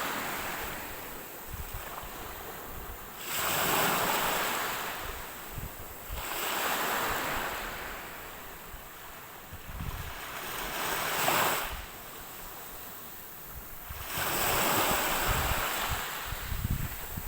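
Ocean waves breaking and washing in, each wash swelling up and then fading away, about one every three to four seconds.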